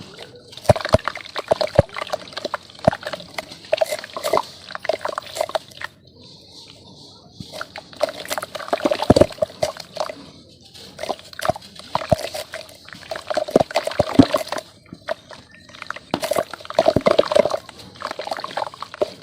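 Lumps of red dirt being smashed and crumbled in water: wet, crackling crunches in bursts, with short pauses about six seconds in and again near the end.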